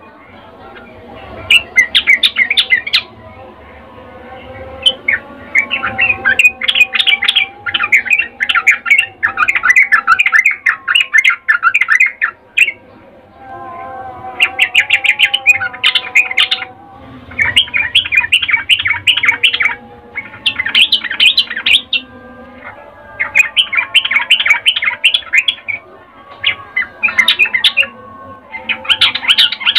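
Yellow-vented bulbul (trucukan) calling in about ten bursts of rapid chattering notes, each burst a second or two long with short pauses between. It is the 'ngecuplik' chatter that keepers take for a female's breeding call to a male.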